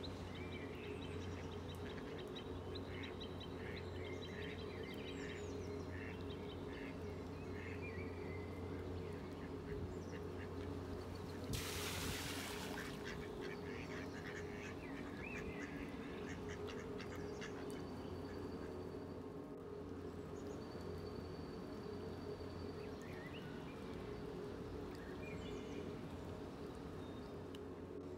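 Mallard ducks quacking on a pond, with a brief burst of rushing noise about twelve seconds in, over a steady low hum.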